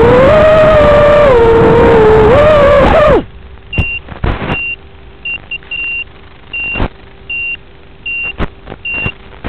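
Kylin 210 FPV racing quadcopter's motors whining loudly, the pitch rising and falling with throttle. The whine cuts off suddenly about three seconds in as the quad crashes into grass. After that, short high beeps repeat every half second to a second, with a few sharp knocks among them.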